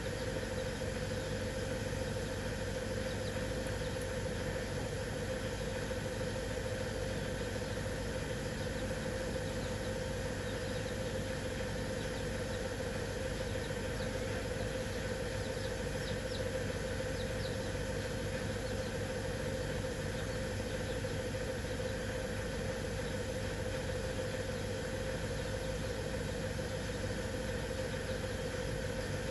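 A steady mechanical hum, as of a motor or engine running, with a constant tone and no change in speed.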